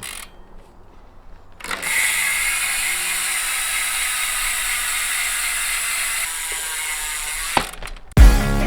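Downhill bike's rear freehub buzzing as the wheel spins freely, its pawls clicking too fast to count. The buzz starts about two seconds in, holds steady and stops shortly before the end, where rock music cuts in.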